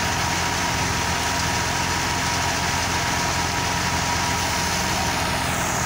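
Ghazi tractor's diesel engine running steadily, driving a drum thresher that is being fed crop stalks, the engine's low drone mixed with the thresher's steady whirr. A faint falling whine near the end.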